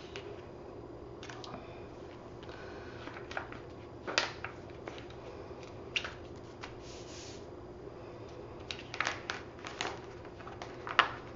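Clear plastic carrier sheet of heat transfer vinyl crinkling and rustling as it is handled, lifted and set down on a cotton T-shirt, with scattered light clicks and a brief soft slide about seven seconds in, over a faint steady hum.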